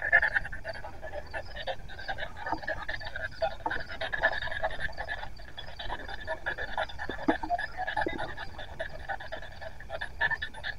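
Spirit box sweeping through radio stations: a rapid, choppy stutter of static and clipped broadcast fragments, going on without pause.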